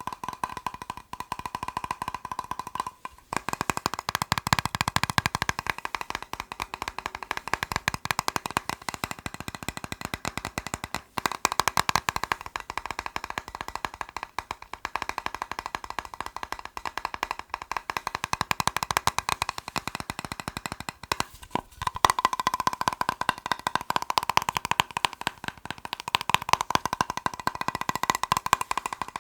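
Fast tapping on a plastic box: a dense, rapid patter of hollow plastic clicks, broken by brief pauses about three, eleven and twenty-one seconds in.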